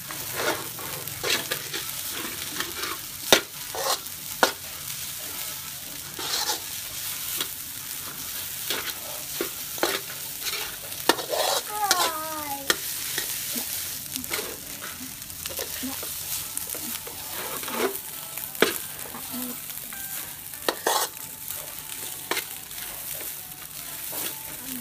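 Rice stir-frying in a stainless steel wok: a steady sizzle with irregular scrapes and clanks of a metal spatula against the pan. A brief falling squeal comes about halfway through.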